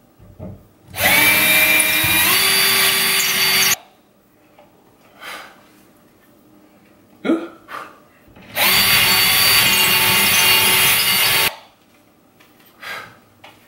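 Cordless drill running in two bursts of about three seconds each, a larger bit widening a small pilot hole in drywall; the motor's whine steps up in pitch partway through the first burst. A few light knocks come between the bursts.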